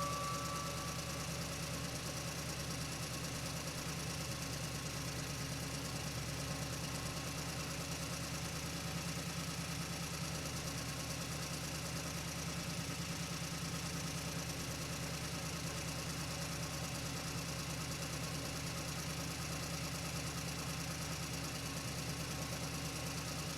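An engine idling steadily: an even low hum with a fast, regular pulse that does not change.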